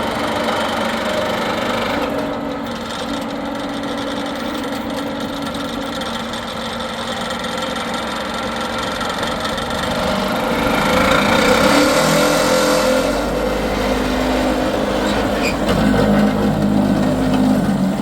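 A motor vehicle's engine running, getting louder about ten seconds in, with a deeper low rumble building from about thirteen seconds.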